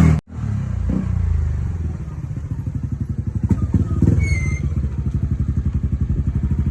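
Yamaha Aerox scooter's single-cylinder engine running through a JVT v3 aftermarket exhaust with its adjustable baffle bolt set half closed. It idles with a steady pulsing beat and is revved up briefly twice, about a second in and about four seconds in.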